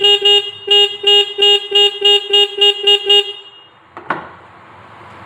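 Motorcycle electric horn beeping in about ten quick taps, roughly three a second, then stopping. Near the end there is a sharp click and a low steady hum begins.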